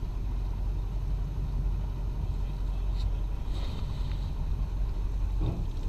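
A steady low rumble aboard a small boat, with a faint splash about three and a half seconds in as a thrown cast net lands on the water.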